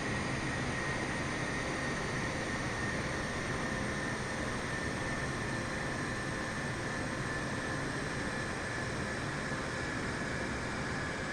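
Jet airliner engines running in a steady rush of noise, with a high whine that drifts slightly lower while the sound slowly eases off.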